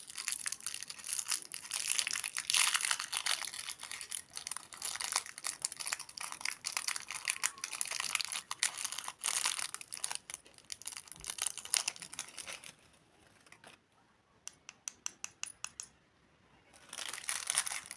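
Plastic candy wrapper crinkling and tearing as it is opened by hand, for about twelve seconds. Then a run of quick, light clicks, and a short burst of crinkling near the end.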